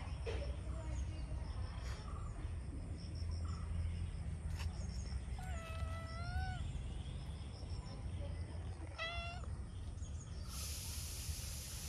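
Domestic cat meowing twice: a drawn-out meow about halfway through and a short one about three seconds later, over a steady low rumble. A steady high hiss comes in near the end.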